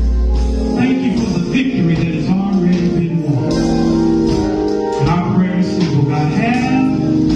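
A man singing a slow gospel song into a microphone, his voice gliding up and down between notes, over held instrumental chords and a deep bass note near the start.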